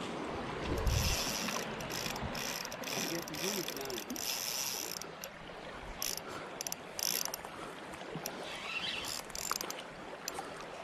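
Spinning fishing reel clicking in uneven spurts of rapid high-pitched ticks, its drag giving line to a hooked carp.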